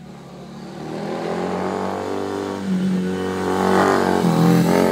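Triumph motorcycle engine growing steadily louder as the bike rides in toward the microphone. The revs rise, dip briefly about four seconds in, then climb again.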